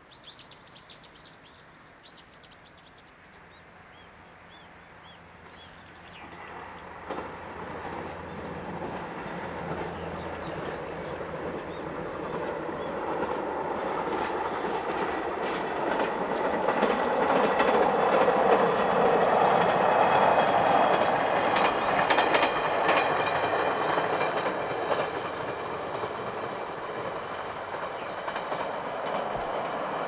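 A few bird chirps, then a two-car passenger train on a concrete railway bridge draws closer and passes, its rumble building from about six seconds in and loudest in the middle, with wheels clicking rhythmically over rail joints and a steady high whine. The sound then eases off but does not die away.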